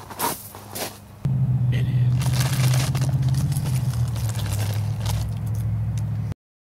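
A couple of footstep-like clicks, then a loud, steady low rumble with crackling over it, which cuts off suddenly near the end.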